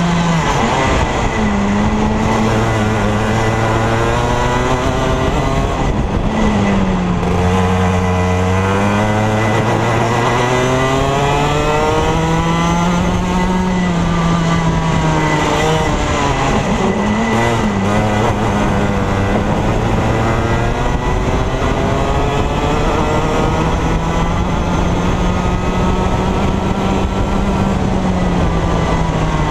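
Go-kart engine running hard under the onboard camera, its pitch repeatedly dropping and climbing again as the kart slows for corners and accelerates out of them, with a hiss of wind and tyre noise underneath.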